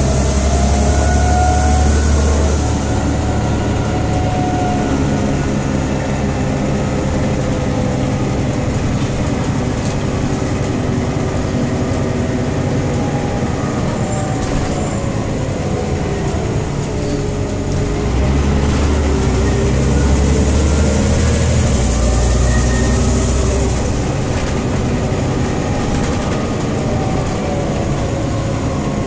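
Inside a 2001 Scania OmniCity city bus under way: its Scania DC9 five-cylinder diesel and ZF 4HP 502 automatic gearbox running, a steady low rumble with whining tones on top. The whine falls in pitch about halfway through and climbs again, while the low rumble swells near the start and again about two-thirds of the way in.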